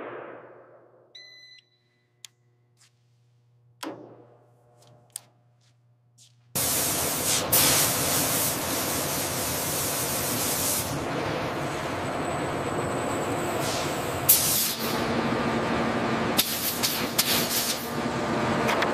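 A spraying hiss fades out, then near quiet with a short beep and a few clicks. About six and a half seconds in, a loud steady hiss of air-driven spraying starts in a booth and runs on.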